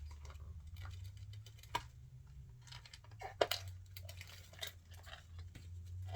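Small plastic toy pieces and packaging being handled, with scattered clicks, taps and light crinkling. The loudest click comes about three and a half seconds in, and a steady low hum runs underneath.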